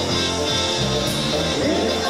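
Live polka band playing dance music, with sustained melody notes over a steady bass line.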